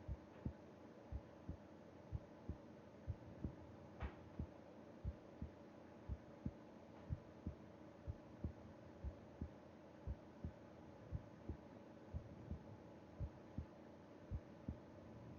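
A human heartbeat heard through the chest during sleep: slow, even lub-dub double thumps, about one beat a second, over a faint steady hum.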